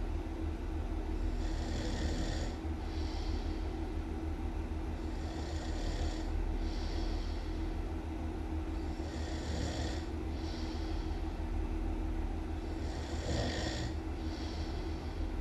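Loud snoring in a slow, regular rhythm, about one breath every four seconds, each breath in two hissing parts, over a steady low hum.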